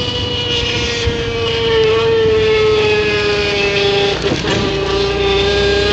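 Scooter modified to sound like a sports bike, giving a steady high whining note that sags slightly in pitch and then rises again near the end.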